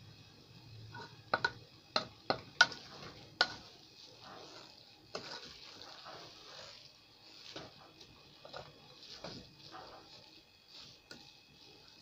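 Wooden spoon stirring cooked greens in a stainless steel pot: a quick run of sharp knocks of the spoon against the pot about a second in, then softer scraping and rustling of the greens with a few lighter knocks.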